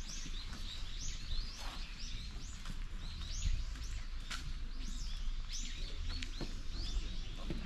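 Small birds chirping over and over, short high arched notes about two a second, over a steady low background rumble.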